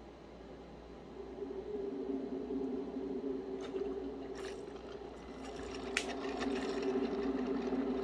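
Ninja Dual Brew Pro pod coffee maker brewing: its pump starts humming about a second in and grows louder as hot water is pushed through the pod. A few sharp clicks and spits come with it, the loudest about six seconds in.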